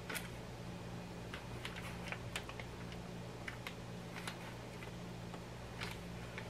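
Scattered light clicks and crinkles of a plastic bag as a handheld battery-powered mini bag sealer is pressed and slid along its edge to heat-seal it, over a low steady hum.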